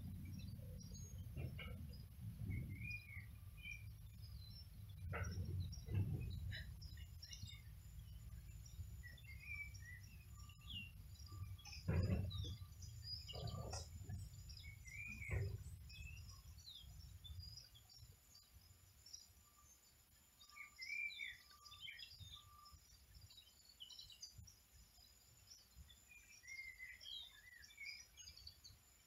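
Small birds chirping and singing over a low rumble, with a few dull thumps in the first half, the loudest about twelve seconds in.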